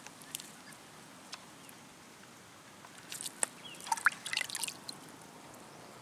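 Water dripping and splashing into a plastic bucket as wet hands are dipped and shaken over it, a quick cluster of small plops and splashes from about three to four and a half seconds in.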